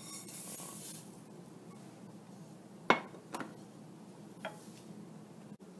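Roasted semolina poured and scraped from a nonstick pan into a ceramic dish, with a soft hiss of dry grains. About three seconds in comes a single sharp knock of pan or wooden spoon against the dish or the glass cooktop, followed by two lighter clicks.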